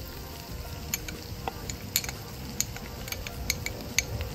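Light, sharp clicks and taps, roughly two a second, at a plastic Ninja blender jar as ingredients are spooned in, over a steady sizzle of onions and bell peppers frying in oil.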